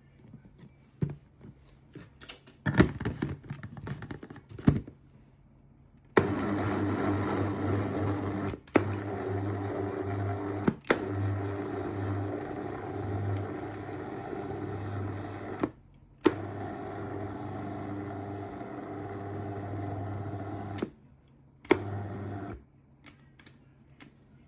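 A few clicks and knocks, then an electric food processor's motor running for several long stretches with brief stops, pounding boiled yam, and one short final burst. The cook says the processor is not suited to hot food and gives off flame, so the motor is working under strain.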